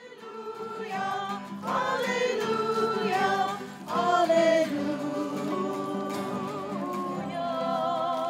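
A small group of voices singing a song together. Held notes near the end waver with vibrato.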